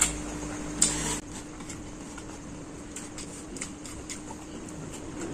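Close-up chewing and mouth noises of a person eating instant noodles, with two sharp clicks near the start and small scattered smacks and ticks after. A low steady hum stops about a second in.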